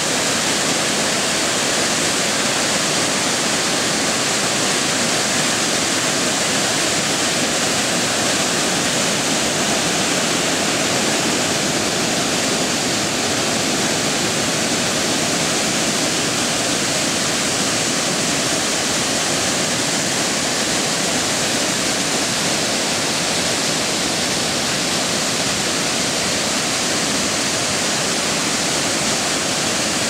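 Waterfall pouring over a stepped dam spillway into a churning pool: a loud, steady rush of falling water.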